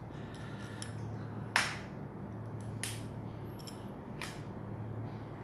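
Three sharp clicks or taps, the loudest about a second and a half in, over a steady low hum.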